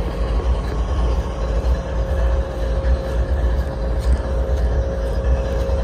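CSX diesel locomotive idling at a standstill: a steady low rumble with a constant hum over it.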